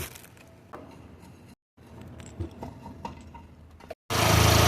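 Scattered light clicks and taps of hand tools and small engine parts being handled during a thermostat replacement. A loud steady rush of noise starts suddenly near the end.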